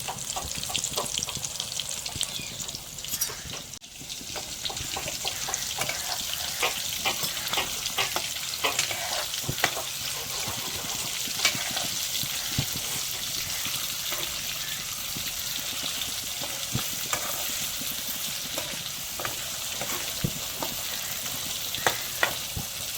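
Fish roe frying in hot oil in a pan: a steady sizzle with frequent pops and crackles.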